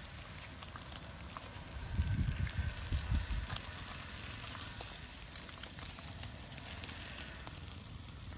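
Wood campfire crackling with a steady sizzling hiss from fish roasting on bamboo skewers over the flames. A low rumble comes through about two to three seconds in.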